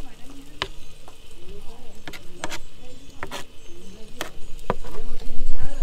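Small wood fire of wet sticks crackling under a clay cooking pot, with sharp pops scattered every half second or so, over a low sizzle of onion and tomato frying in the pot. A louder low rumble comes near the end.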